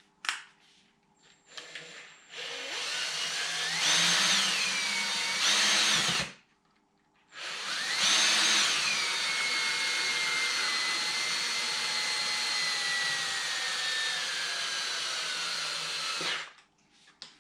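Power drill driving the milling machine's X-axis ball screw to run the table along its travel. It runs twice: a short run, a pause of about a second, then a longer run of about nine seconds. Each run's whine falls in pitch soon after it starts, then holds nearly steady.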